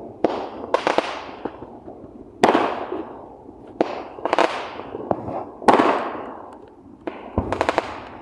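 Fireworks going off: sharp bangs every second or two, each followed by an echoing tail, with a quick run of crackling pops near the end.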